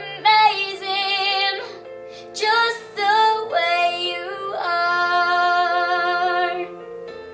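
A young girl singing solo, with sliding runs and long held notes, the longest near the end, over a quiet instrumental backing.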